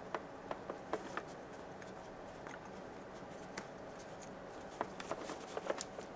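Small clicks and scrapes of coaxial cable connectors being handled and fitted to the in and out ports of a small amplifier board, in a cluster in the first second, once in the middle and again in a busier cluster near the end, over a faint steady hum.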